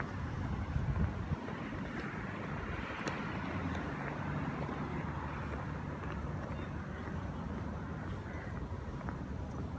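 Outdoor ambience of traffic: a steady low rumble with a swell of road noise a couple of seconds in, and a few soft thumps about a second in.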